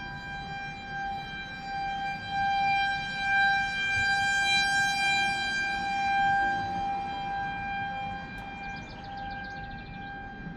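Outdoor civil-defense warning siren sounding a steady tone in a test. It swells louder a few seconds in and eases off again toward the end.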